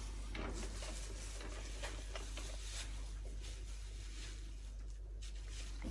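Faint, scattered light clicks and rattles of small toy cars being handled on a plastic toy parking garage, over a low steady hum.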